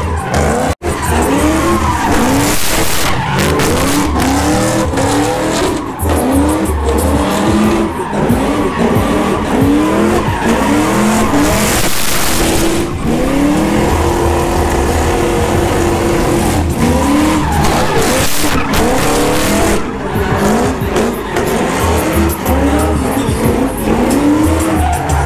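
Pontiac G8 sedan doing donuts: the engine revs up and down again and again while the spinning tires squeal and skid. About halfway through, the revs are held steady for a couple of seconds.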